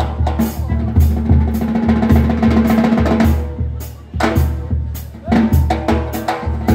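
Cimarrona brass band playing loudly: a bass drum with a cymbal mounted on top beats a steady rhythm under trumpet, trombone and saxophone. The music drops away briefly about four seconds in and comes back in with strong drum hits.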